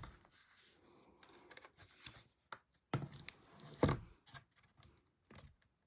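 Scattered light clicks and taps of small hand tools and wooden pieces being handled, with two sharper knocks about three and four seconds in.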